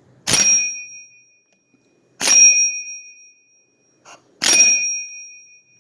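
Three sharp metal-on-metal strikes about two seconds apart, each leaving a short, bright two-note ring as it fades.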